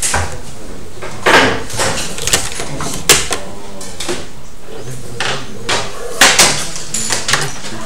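Drafting tools handled on a drawing board: a plastic set square and wooden straightedge sliding and tapping on paper, and a pencil drawn along the set square's edge. It makes a string of irregular taps and short scrapes, the loudest about a second in, at three seconds and at six seconds.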